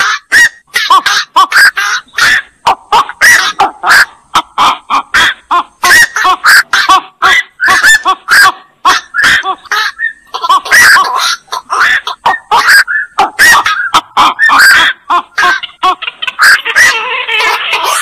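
Black-crowned night heron ('koak') calls: short calls repeated in a busy run, several a second. Over the last two seconds or so they merge into a denser chorus.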